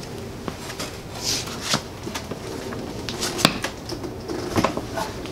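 Honda Ruckus scooter being rocked and lowered off its wooden blocks onto the floor: scattered knocks and clicks with shoe scuffs, the sharpest knock about three and a half seconds in.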